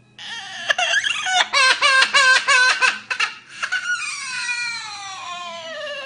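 Green amazon parrot imitating a crying baby: a quick run of short sobbing cries, about five a second, then from about four seconds in one long wail that slides steadily down in pitch.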